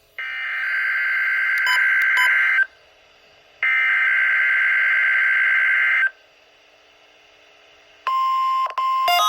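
EAS SAME header data bursts of a NOAA Weather Radio Required Weekly Test, played through a weather radio's speaker: two harsh, buzzing digital bursts of about two and a half seconds each, a second apart. Near the end a steady electronic tone starts, with a brief break in it.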